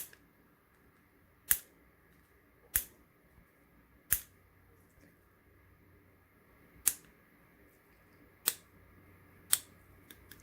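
Cutters snipping the over-long ends of a limit switch short: seven sharp snaps a second or two apart, then two faint clicks near the end.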